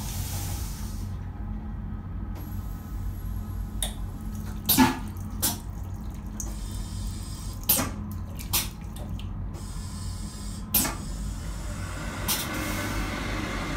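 Sensor tap of a train toilet's stainless steel wash unit running water into the basin, over the low rumble of the moving train, with several sharp knocks. Near the end the unit's built-in hand dryer starts blowing.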